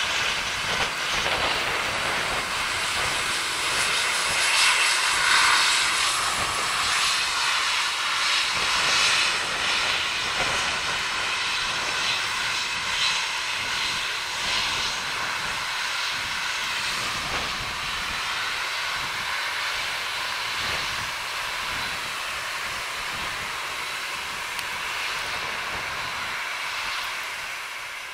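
Jet airliners' turbofan engines running at taxi power: a steady whine and rush that swells a few seconds in and eases slightly near the end.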